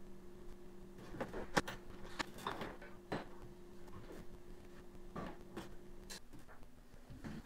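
Irregular knocks and clunks of footsteps and handling on a combine's steel cab ladder. Under them runs a steady low hum, which stops about six seconds in.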